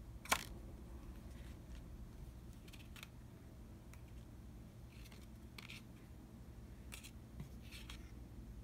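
Pokémon trading cards being handled on a tabletop: a sharp slap of a card about a third of a second in, then a string of soft swishes and taps as cards are slid off one pile and laid on another.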